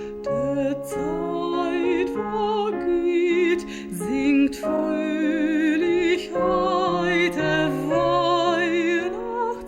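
Music: a song sung with a marked vibrato on held notes, over an instrumental accompaniment.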